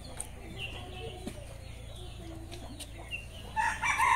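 Domestic chickens clucking faintly, then a rooster starts crowing loudly about three and a half seconds in.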